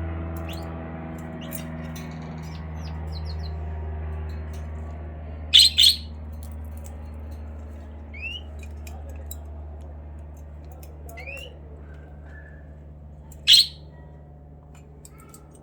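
Pet bird chirping with short calls. It gives two loud, sharp squawks close together about five seconds in and another near the end. A steady low hum runs underneath.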